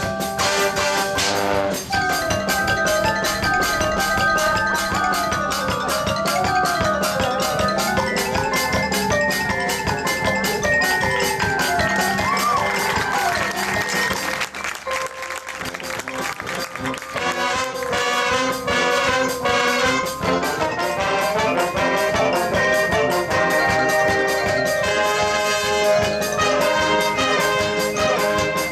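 High school marching band playing its field show: brass melody over marching percussion and front-ensemble mallets, easing off briefly about halfway through before building again.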